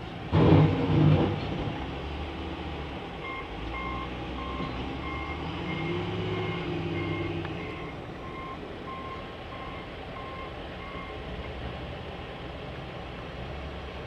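Heavy snow-clearing truck's diesel engine running while its reversing alarm beeps steadily, just under two beeps a second, for several seconds; the engine rises and then falls back about midway. A loud clattering burst comes just after the start.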